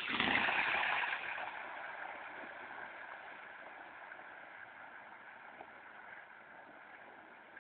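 A car driving past through water, its tyres swishing and spraying: loudest about the first second, then fading slowly away.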